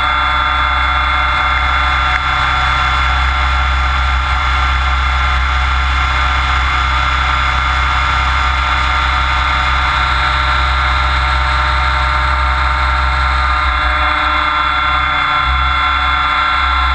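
A Mikado Logo 600SX electric RC helicopter in flight, heard from on board: a loud, steady drone and whine of motor, gears and rotor, with a strong low vibration through the frame.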